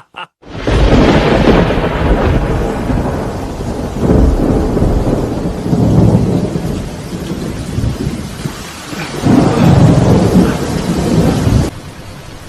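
Thunderstorm: steady rain with rolling thunder that swells several times, then cuts off abruptly near the end, leaving lighter rain.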